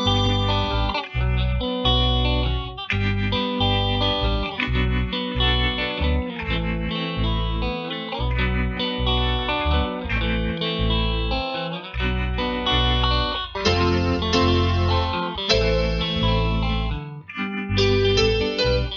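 Background music led by guitar, with a steady rhythmic bass beat.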